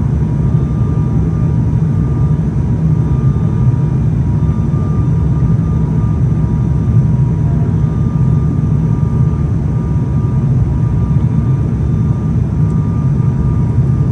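ATR-72 twin turboprop engines and propellers heard from inside the passenger cabin on approach: a loud, steady, deep drone with a faint steady whine on top.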